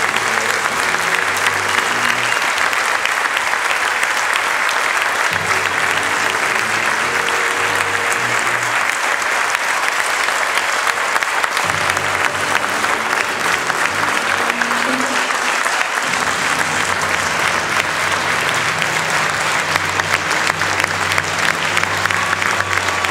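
Long, steady audience applause in a hall, with film-score music playing low underneath.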